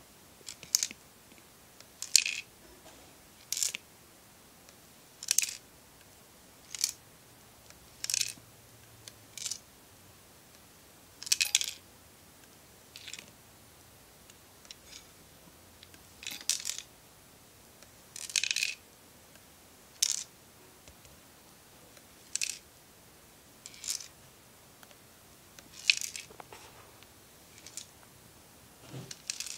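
A loose part inside the plastic housing of a broken hand blender's motor unit, which the owner takes for a screw, rattling each time the unit is tilted, in short sharp clicks about every second and a half.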